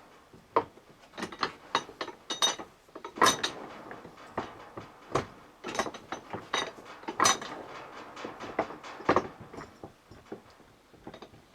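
Steel parts of a driveshaft universal joint clinking and knocking together as it is assembled: irregular sharp metallic taps, each with a brief ring.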